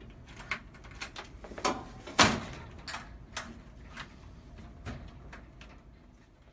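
Clicks and knocks from a retail security display unit being opened and shut to test its newly replaced front lock, with one louder knock about two seconds in.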